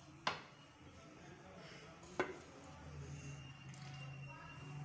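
A metal ladle clinking sharply against the serving dishes twice, about two seconds apart, as chicken nihari curry is ladled from a steel pot onto a plate. A low steady hum comes in about three seconds in.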